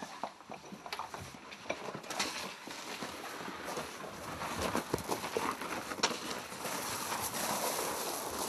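Irregular footsteps and scuffing with scattered small knocks and clicks over a rustling noise that grows louder through the second half, with one sharper click a little after the middle.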